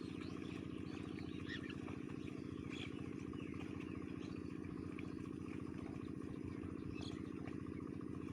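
A small engine running steadily with a fast, even throb, while birds chirp over it.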